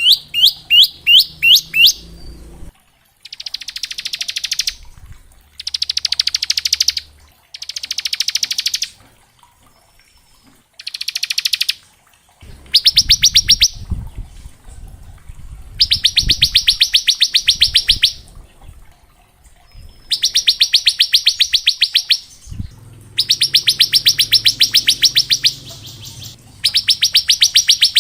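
Bar-winged prinia (ciblek) singing its rapid, machine-gun-like trill, the 'ngebren', in bursts of one to two seconds with short pauses between them. It opens with a run of about six quick rising notes.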